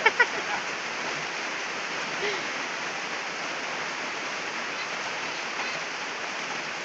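Steady rain falling, a continuous even hiss, with a brief snatch of voice right at the start.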